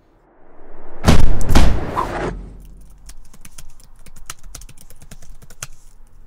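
A loud, sudden burst of rushing noise about a second in, lasting about a second and a half, followed by quick, irregular clicking of laptop keys.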